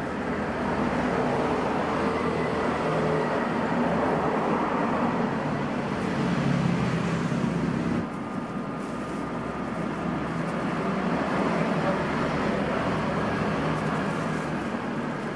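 Steady street background noise of passing road traffic, dipping slightly in level about eight seconds in.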